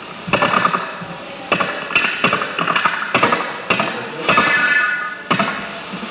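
Throbbing electronic noise: a fast fluttering buzz that starts up sharply about seven times, each burst fading before the next one hits.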